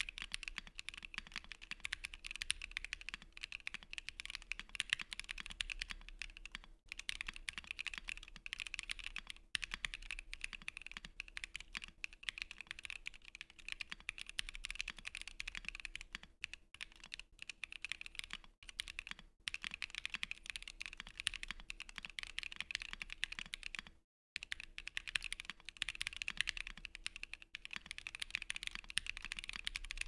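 Steady fast typing on a 60% aluminium mechanical keyboard (Bakeneko60 with EVA foam) fitted with stock, unlubed Kinetic Labs Husky long-pole linear switches: a continuous stream of keystroke clacks. One momentary silent break comes about three-quarters of the way through.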